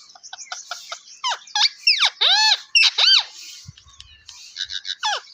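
A parrot calling: a quick run of short chirps, then several loud screeches that sweep sharply down or arch up and down in pitch through the middle, and one more falling screech near the end.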